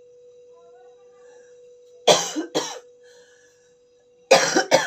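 A woman coughing, two short coughs about two seconds in and two more near the end, from a bad cold with a sore throat. A faint steady hum runs underneath.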